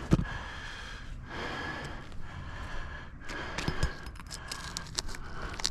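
Roof shingles being pried and scraped as someone works to break their seal, with short scrapes and a couple of dull knocks; the shingles tear rather than lift, a sign of a roof in bad shape.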